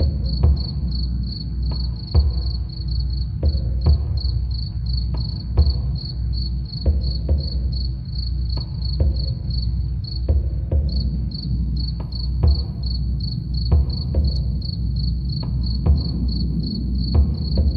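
Crickets chirping steadily, about three chirps a second, with a brief pause a little past the middle. Under them runs a deep, soft drum beat with strikes at uneven intervals.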